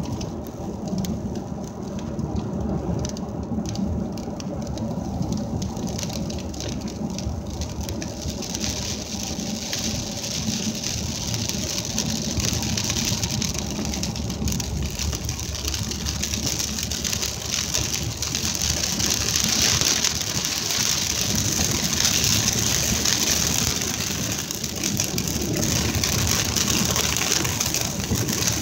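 Rain falling on a moving car's windshield and roof, heard inside the car over a steady low road and engine rumble. Scattered drop taps at first give way to a denser, louder hiss of heavier rain and tyres on wet road from about eight seconds in.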